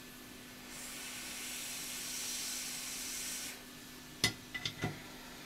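Hot air rework station blowing a steady hiss onto a laptop logic board for about three seconds to melt the solder under a tiny surface-mount filter, then cutting off. A few sharp clicks follow near the end.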